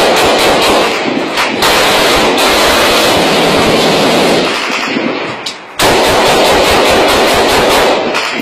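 Close automatic rifle fire in long, continuous bursts, with a short break about five seconds in before it resumes.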